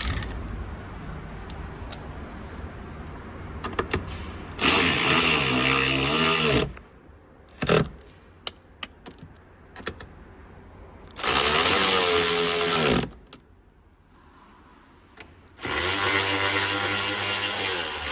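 Handheld power tool running the door checker's nuts and bolt onto the door, in three bursts of about two seconds each. Its motor pitch shifts as it spins up and slows, with small clicks of handling in between.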